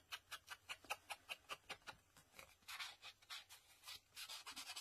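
Round foam ink blending tool rubbed in quick strokes over the edge of a paper tag, distressing it with ink. It makes about six faint swishes a second for the first two seconds, then slower, softer rubbing.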